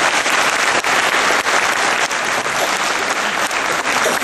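Audience applauding: loud, dense and even clapping.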